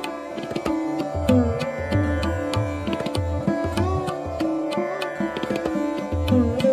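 Indian classical instrumental music: a plucked string instrument plays a melody with bending notes over a steady drone, with hand-drum strokes keeping a rhythm.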